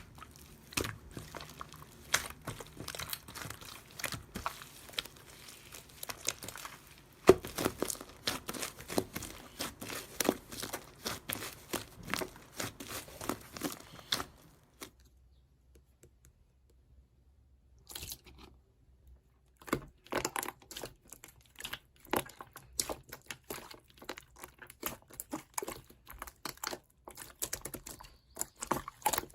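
Slime being squished and stretched by hand: a dense run of small crackling, popping clicks. It stops for about five seconds past the middle, then starts again.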